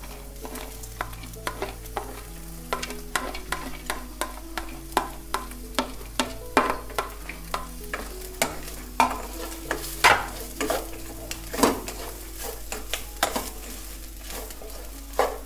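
Spatula stirring chopped kohlrabi and onion in a steel pot, scraping and knocking against the pot in irregular clicks, over a light sizzle of sautéing.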